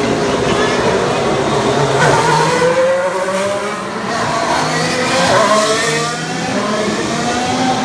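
Formula 1 cars' turbocharged V6 hybrid engines running on track, several engine notes overlapping and rising and falling in pitch as the cars accelerate and slow.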